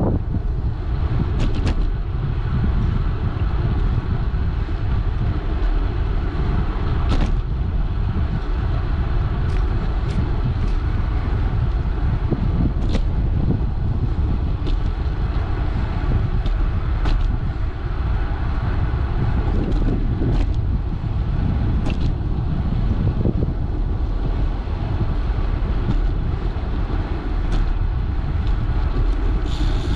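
Wind rumbling on the microphone of a bicycle-mounted camera, over tyre noise on asphalt while riding, with a dozen or so sharp clicks scattered through.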